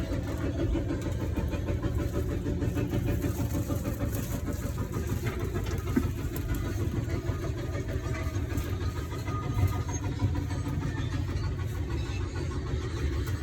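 Bus engine running, heard from inside the cabin as a steady low rumble, with a few brief knocks partway through.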